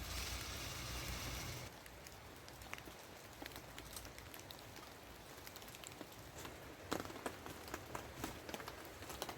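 Light rain falling, a faint hiss with scattered drops ticking. In the first second and a half a louder hiss with a low rumble lies over it.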